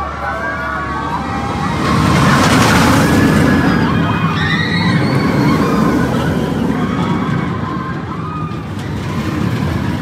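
Riders screaming on a Vekoma boomerang roller coaster, many wavering screams overlapping over the loud rush and rumble of the moving train, loudest from about two seconds in.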